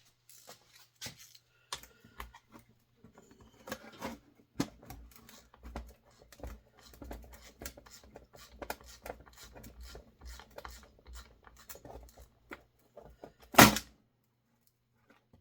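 Metal hand tools being handled and rummaged through: irregular clicks, taps and rattles, with one loud clank near the end.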